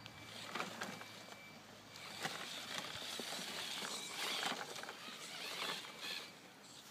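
Snow crunching and scraping in uneven bursts, with scattered clicks, busiest through the middle few seconds.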